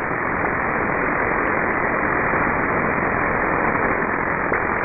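Shortwave receiver static in upper-sideband mode: a steady, narrow, muffled hiss of band noise, with no station voice on the frequency.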